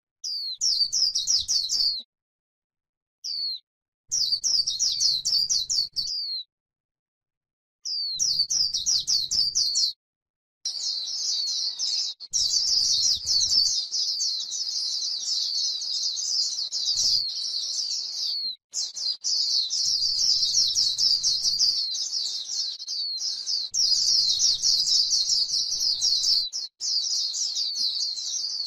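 White-eye singing a fast, high, twittering warble of quick rising and falling notes, the full 'líu' song used to lure and stimulate white-eyes. It comes in short phrases separated by silent gaps at first, then runs on almost without pause from about ten seconds in.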